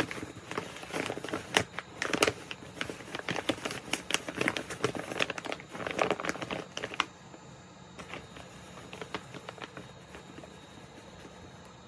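Packaging being handled, crinkling and rustling in quick crackles for about seven seconds, then only a few faint taps.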